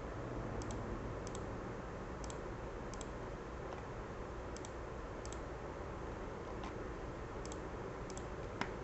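Computer mouse button clicks: about eight short press-and-release pairs, irregularly spaced, over a steady low hum and hiss.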